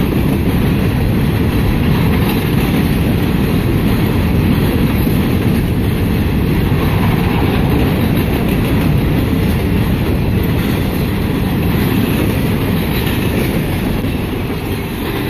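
CSX freight train's cars rolling past, steel wheels clattering steadily over the rails and the diamond crossing.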